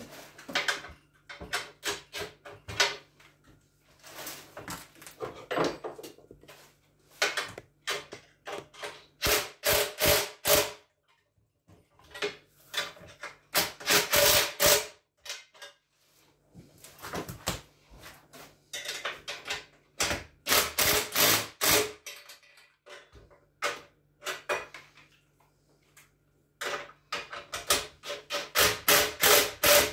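Cordless drill-driver run in repeated short bursts of a second or two, driving screws or bolts into the chicken plucker's motor mount, with knocks and clicks of parts being handled in between.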